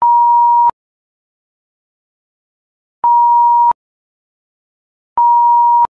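Three loud electronic beeps, each a single steady pure tone just under a second long, starting and stopping abruptly with a click, with dead silence between them.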